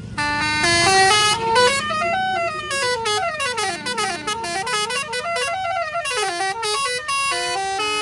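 Tour bus basuri telolet horn playing a fast melody of short stepped notes that climb and fall in quick runs. It starts abruptly and is loud.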